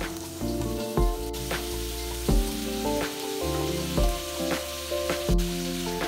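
Mung bean sprouts sizzling in a hot wok as they are stir-fried with a spatula: a steady frying hiss with sharp strokes about once a second.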